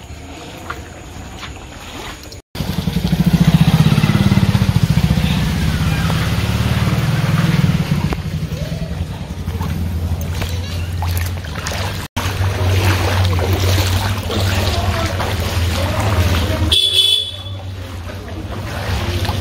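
Traffic on a waterlogged street: vehicle engines running with a steady low hum, over voices of people around. The sound is made of several short clips that cut off abruptly.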